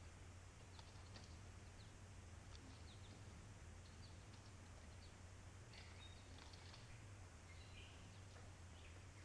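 Near silence: faint outdoor ambience with a steady low hum and a few faint, scattered bird chirps.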